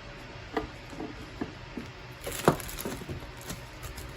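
Light clicks and taps of parts being handled and fitted together by hand during reassembly of a car's touchscreen unit, with one sharper knock about two and a half seconds in.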